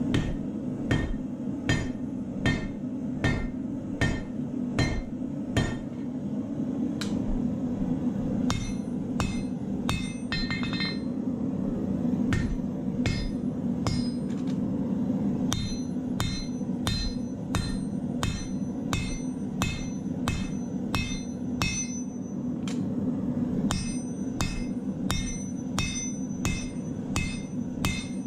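Hand hammer drawing out a glowing-hot steel knife blade on an anvil, blows about every three-quarters of a second with a ringing note after each, pausing briefly about six seconds in before carrying on. A steady low roar from the gas forge burner runs underneath.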